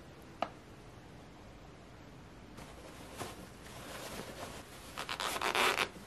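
A single light knock, then a cotton straining cloth rustling and rubbing as it is gathered up around strained yogurt in a mesh sieve, growing louder and loudest near the end.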